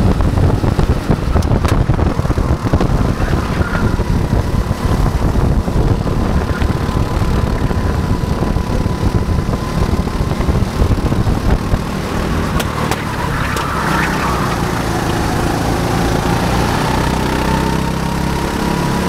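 Rental go-kart running at racing speed, heard from the driver's seat: the kart's running noise and a steady whine, under heavy wind rumble on the onboard mic. About twelve seconds in it gets a little quieter and smoother as the kart eases off for a corner.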